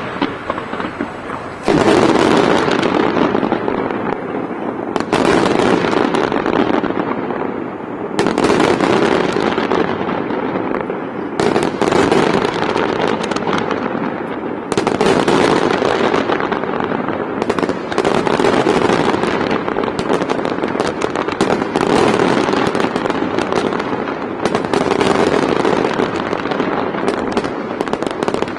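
Professional fireworks display barrage: a fresh volley of shell bursts comes in about every three seconds, each followed by many rapid small pops that fade before the next volley.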